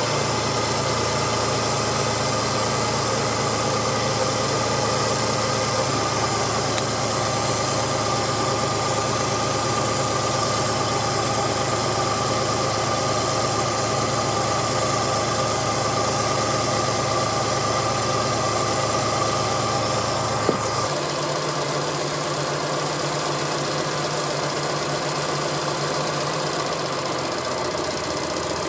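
Suzuki Cappuccino's turbocharged three-cylinder engine idling steadily. About 21 seconds in there is a click and the low drone changes.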